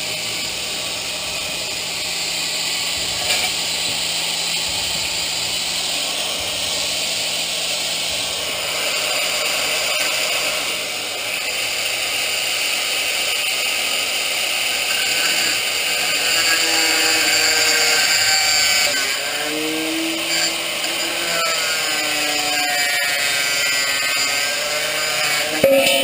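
Power grinder cutting through a motorcycle's metal exhaust pipe, a continuous high grinding hiss whose pitch wavers in the second half as the tool loads.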